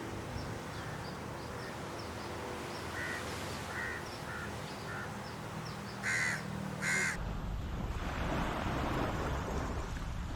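Bird calling outdoors: a few faint short calls, then two loud harsh caw-like calls about a second apart. Wind rumble on the microphone follows.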